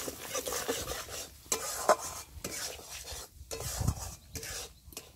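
A metal spatula scraping and stirring a thick spice paste around a steel karahi, in uneven strokes with a sharper clack of metal on metal about two seconds in, over a light sizzle of oil. The masala is being fried down (bhuna) in hot oil.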